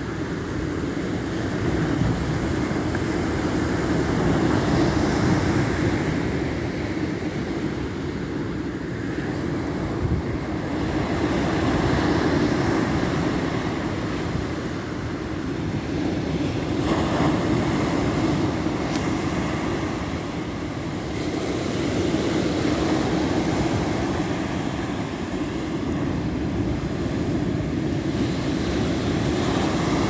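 Rough Black Sea surf breaking and washing up a pebbly beach, a steady rush that swells and eases every five or six seconds.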